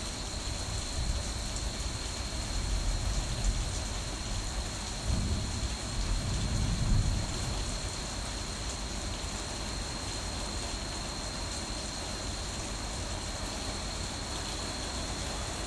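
Rain falling steadily, with a low rumble of thunder swelling about five seconds in and dying away a couple of seconds later.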